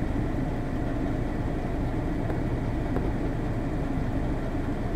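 Steady low rumble of a motor vehicle's engine running, heard close by.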